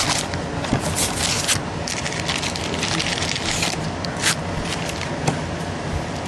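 Trading card packs from a 2011 Prestige football box being handled and torn open: wrappers crinkling and tearing and cards rustling, in a run of short crackles and scrapes.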